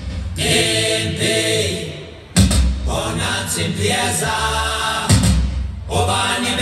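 Choral music: a choir singing and chanting over strong low drum beats, played over a hall's sound system.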